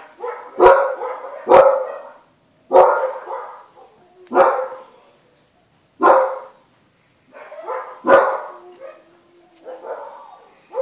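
A dog barking: about seven loud single barks, one every second or two, with short quiet gaps between them.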